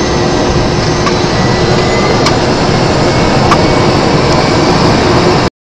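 Aircraft engine noise from a plane flying over the airfield: a loud, steady rush with a faint constant whine, cutting off suddenly near the end.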